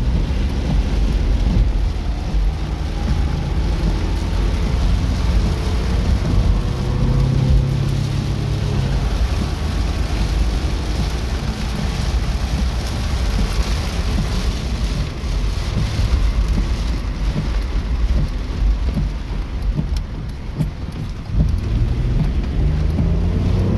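Heavy rain drumming on a vehicle's roof and windshield from inside the cab while driving through a thunderstorm, over a constant low rumble.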